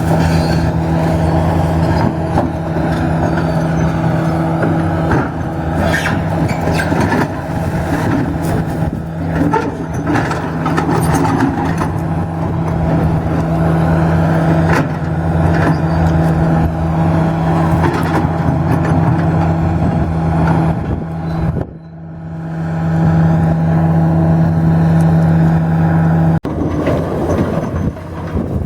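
Heavy demolition machine's engine running steadily under load, with scattered scrapes and knocks of rubble. The engine drops briefly about three quarters of the way in and revs back up.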